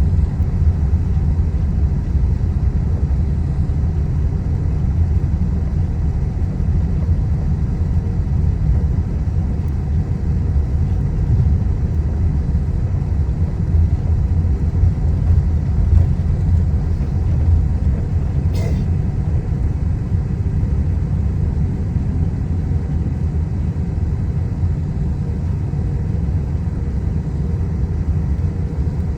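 Boeing 777 taxiing: a steady low rumble, with one short click about two-thirds of the way through.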